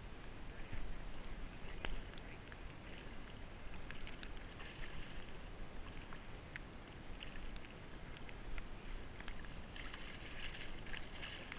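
A hooked Chinook salmon thrashing and splashing in shallow water at the bank, with a short splash about a third of the way through and a longer, louder bout of splashing near the end.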